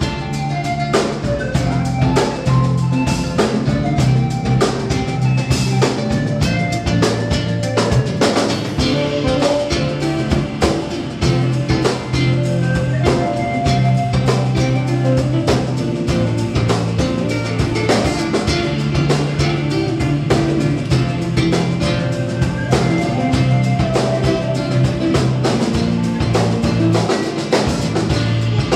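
Live band playing an upbeat instrumental: two acoustic-electric guitars, electric bass and a drum kit, with steady bass notes and a regular drum beat.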